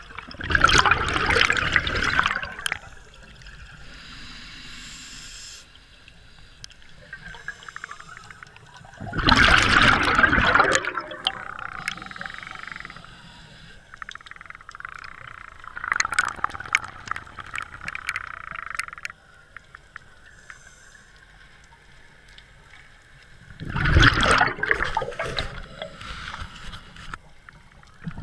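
Scuba regulator breathing recorded underwater: loud gurgling bursts of exhaled bubbles about every seven to eight seconds, four times, with a softer hiss between them.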